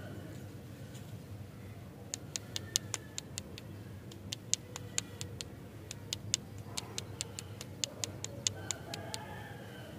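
An uneven run of sharp, high clicks, a few a second, starting about two seconds in and stopping near the end, over faint bird chirps.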